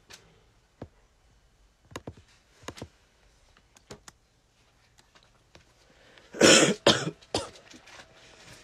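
A person coughs loudly about six and a half seconds in, followed by a second, smaller cough just after; before that only a few faint taps and clicks.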